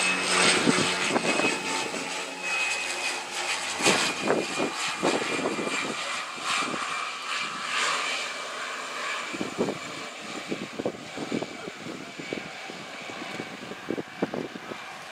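De Havilland Canada DHC-6-300 Twin Otter's two Pratt & Whitney PT6A turboprop engines and propellers on final approach, a steady high whine fading as the aircraft passes and descends away. Irregular thumps of wind on the microphone, most often in the second half.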